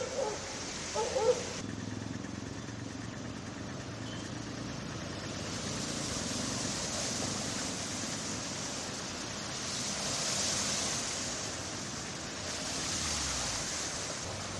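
Cars driving through knee-deep floodwater: a low engine hum under the swish and splash of water thrown up by the tyres, swelling three times as vehicles pass. A few short, loud calls come in the first second or so.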